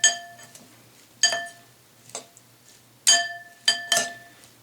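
Utensils clinking against a salad bowl while a dressed salad is tossed: about six separate clinks, each ringing briefly.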